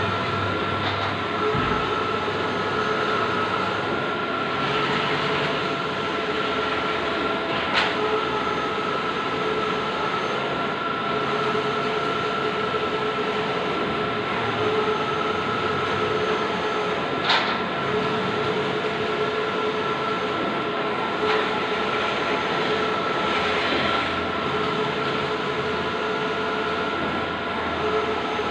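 Bluewin large-format outdoor printer running: a steady mechanical whir with two held whining tones, a few sharp clicks and faint swells every few seconds.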